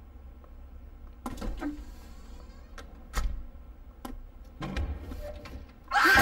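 Low steady drone with a few sharp knocks and clicks, then a pair of push-bar double doors pushed open near the end with a sudden loud burst of sound.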